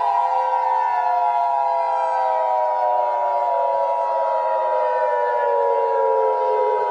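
Civil defense warning siren wailing, with one tone held steady while a second tone slowly falls in pitch over several seconds, then starts to rise again at the very end.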